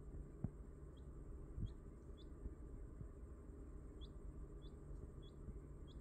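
Newly hatched quail chick peeping: seven short, high peeps, each sliding upward, in a group of three and then, after a pause, a group of four. Two soft low thumps come near the start, the first about half a second in being the loudest sound.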